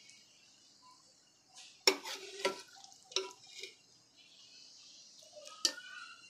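A metal spoon clinking and scraping against metal cooking pots as chicken-and-potato curry is scooped out and spread over rice, with about four sharp clinks, the loudest about two seconds in and another near the end.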